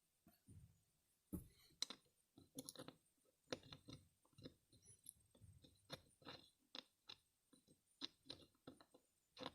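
Faint, irregular clicks and scrapes of small metal carburetor parts being handled, as little screw caps are fitted and threaded on by hand.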